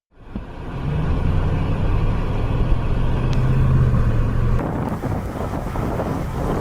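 A vehicle running, a steady low drone over rushing noise. About four and a half seconds in, the drone drops away and a broad rushing noise carries on.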